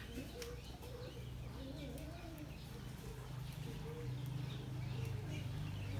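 Farm poultry making soft, wavering low calls over a steady low hum that grows louder toward the end.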